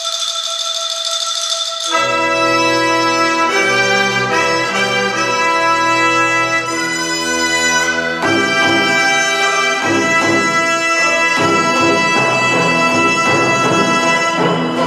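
Chinese traditional orchestra playing a percussion concerto: a single held high note for about two seconds, then the full ensemble comes in loudly with sustained chords over low notes. About eight seconds in the music turns busier, with repeated percussion strokes under the winds and strings.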